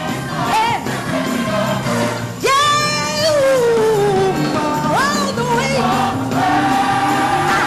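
Gospel music with singing: a voice holding notes and sliding between them, with one long falling slide about three seconds in, over a steady low accompaniment.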